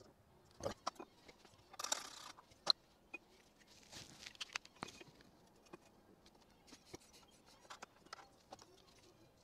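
Quiet handling sounds: scattered light clicks and taps, with two brief scratchy rustles about two and four seconds in.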